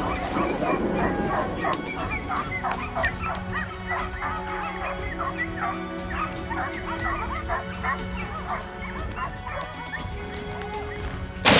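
A pack of hunting dogs barking and yelping, many short overlapping barks. Right at the end a single loud rifle shot cracks out.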